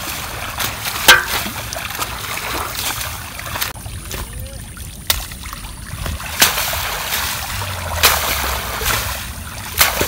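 Wet retted jute fibre bundles being handled and laid into an aluminium basin: wet slaps and rustling, with half a dozen sharper slaps spread through, the loudest about a second in.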